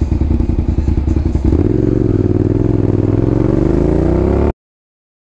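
Suzuki SV650's V-twin engine running steadily at low speed, then rising in pitch as the motorcycle accelerates from about a second and a half in. The sound cuts off abruptly near the end.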